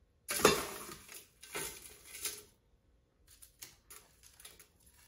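Crushed ice shifting and clinking in a glass as it is handled: two short noisy bursts in the first two and a half seconds, then fainter scattered clicks.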